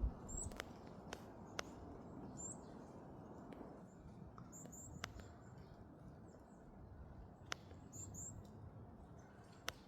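Varied tit giving short, high, thin call notes every couple of seconds, some in quick pairs. Scattered sharp clicks sound between them.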